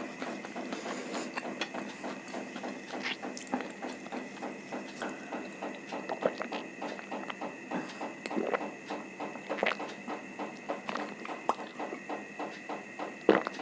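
Close-miked chewing, with wet clicks and smacks of the mouth at a steady pace of about three to four a second.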